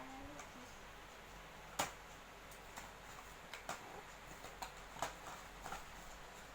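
A few sharp clicks and knocks from objects being handled, the loudest about two seconds in, with smaller ones scattered through the rest, over quiet room tone.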